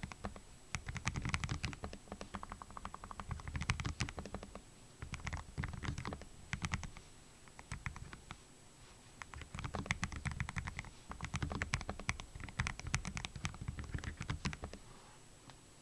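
Typing on a Lofree Flow low-profile mechanical keyboard with Kailh Full POM switches: fast runs of soft keystrokes in bursts of a second or two, with short pauses between them.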